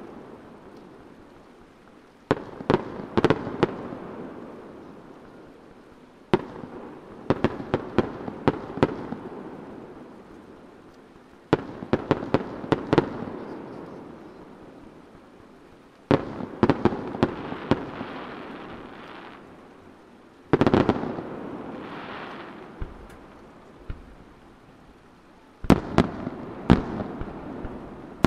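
Aerial firework shells bursting: clusters of sharp bangs and crackles every few seconds, each cluster trailing off in a long rumbling echo off the surrounding mountains.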